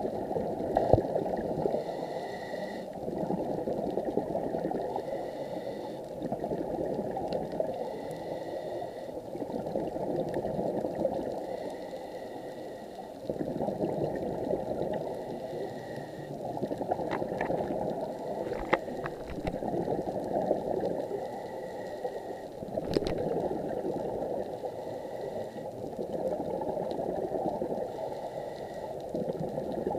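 Underwater recording of a scuba diver's breathing: muffled rushing and bubbling of exhaled air that swells and fades every few seconds. There are a few faint clicks in the second half.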